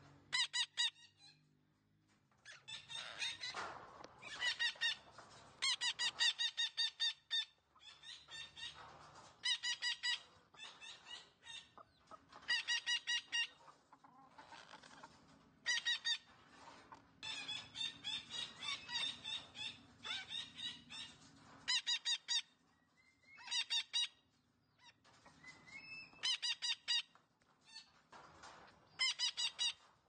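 Red-breasted parakeet giving loud, harsh, nasal calls in quick runs of several at a time, with short pauses between the runs.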